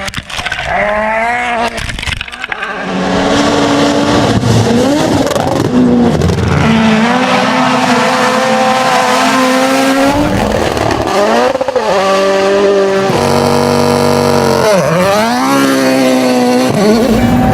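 Rally cars at full speed, engines revving hard, pitch climbing through each gear and dropping at the shifts and as the cars go by.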